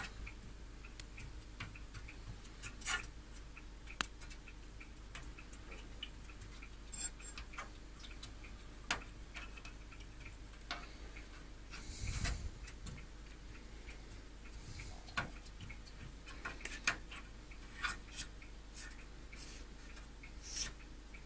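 Steady low electrical hum from a powered-up, opened Commodore 128, with faint quick ticking and scattered sharp clicks and taps from fingers touching its chips.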